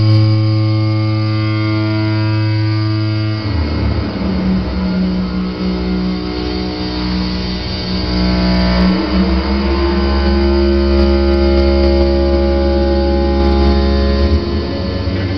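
Analog eurorack modular synthesizer playing a loud, sustained low drone of steady tones with stacked overtones. The bass note drops abruptly about three and a half seconds in, and the overtones shift again near nine seconds in.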